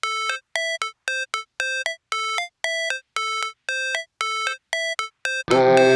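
Electronic music: a synth plays short, repeated beeping notes, about two a second, alternating between two pitches. About five and a half seconds in, a fuller track with bass comes in.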